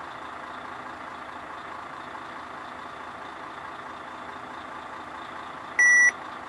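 Steady hum inside a stationary semi-truck cab with the engine idling, and one short, sharp electronic beep about six seconds in.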